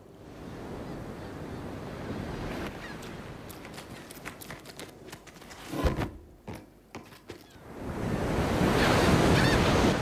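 A rushing, wind-like whoosh of air, with a sharp thump about six seconds in; the rush swells louder over the last two seconds.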